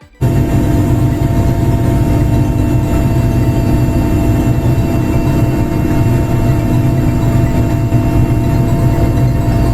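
A heavy engine running steadily and loudly, close up, with a constant low drone and several steady whining tones. It cuts in suddenly at the very start.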